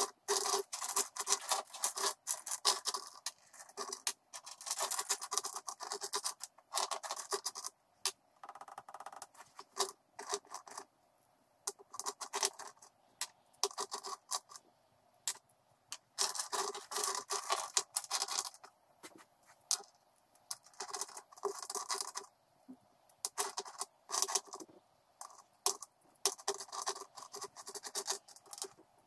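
Loose steel bolts, nuts and washers clinking, rattling and scraping against each other and the wooden bench as hands sift through a pile of hardware, in uneven flurries with short pauses.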